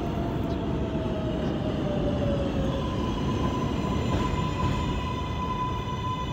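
R142A subway train pulling into the station: wheels rumbling on the rails while the propulsion whine falls slowly in pitch as it brakes. About halfway through, the whine settles into a steady high tone, with more tones joining above it near the end.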